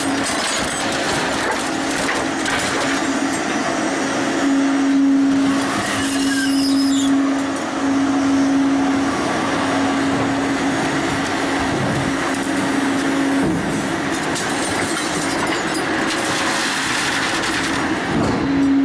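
Shark 1100 hydraulic scrap shear working a bundle of scrap rebar: a steady hydraulic hum under continuous scraping and grinding of steel bars being pressed together. The sound swells louder about five seconds in and again near the end.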